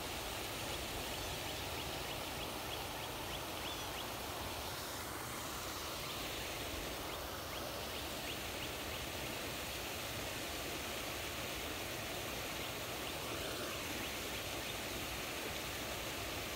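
Steady outdoor background hiss with no clear foreground sound. A faint run of quick ticks sits on top of it in the first few seconds.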